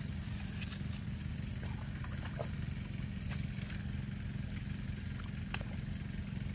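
A hoe chopping and scraping the wet mud of a rice-paddy bank, a few scattered knocks and scrapes over a steady low rumble.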